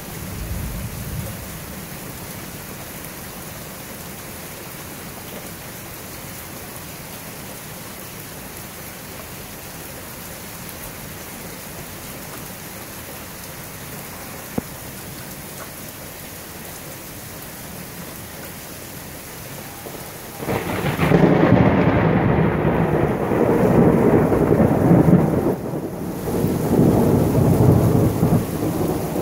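Steady rain falling, then about two-thirds of the way through a long, loud roll of thunder breaks in and rumbles on, swelling and easing.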